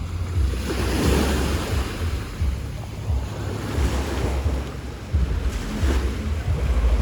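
Sea waves breaking and washing on the shore, in swells every few seconds, with gusts of wind buffeting the microphone.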